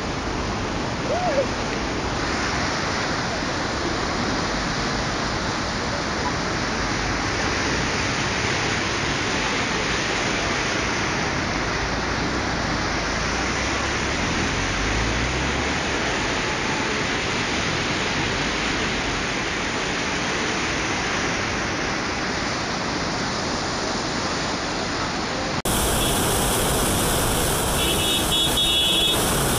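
Floodwater rushing through a flood channel: a steady, even roar of moving water. About 26 s in it cuts abruptly to road traffic with brief car-horn tones.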